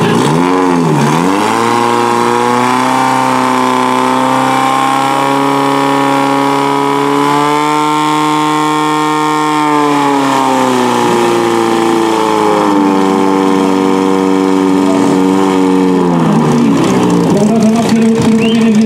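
Portable fire pump's petrol engine running hard while it pumps water through the hoses. Its pitch dips sharply about a second in, recovers and climbs to a peak in the middle, then falls back in steps and settles at a lower speed near the end.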